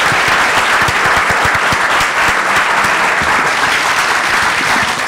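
Audience applauding, a steady, dense clapping that fades out quickly at the very end.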